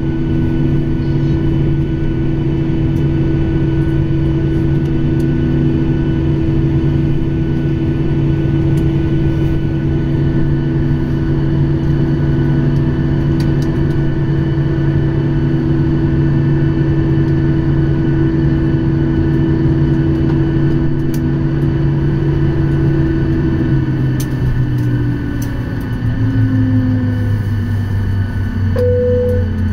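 Boeing 737-800's CFM56-7B turbofan engines idling, heard from inside the cabin over the wing: a steady hum with several held tones. About 23 seconds in the tones fall away in pitch as the engines spool down at shutdown on reaching the stand.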